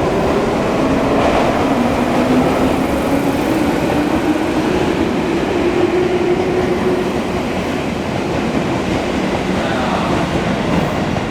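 Electric commuter train running along the platform, its traction motors giving wavering tones over steady rumble and rail noise.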